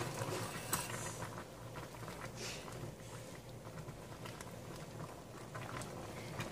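Pork simmering in a steel pot, a faint steady bubbling patter. Near the start come a couple of light knocks as a glass bowl is tipped against the pot to slide a frozen block of pork blood in.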